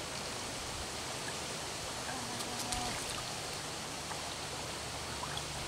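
Steady rush of stream water flowing over a shallow riffle, with a few faint ticks about two and a half seconds in.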